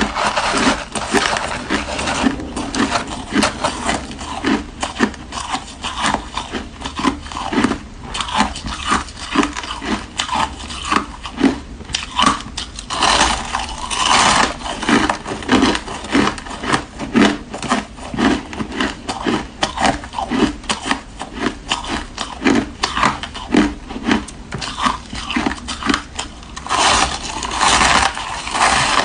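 Chewing and crunching frozen flavoured ice: a rapid run of crisp crunches and scraping bites, with louder bursts of crushing about halfway through and near the end.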